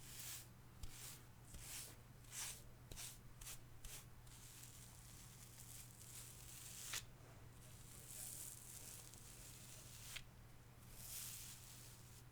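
Hair brush drawn through hair in soft, scratchy strokes: a quick run of short strokes in the first few seconds, then slower, longer ones, with a sharper scratch twice.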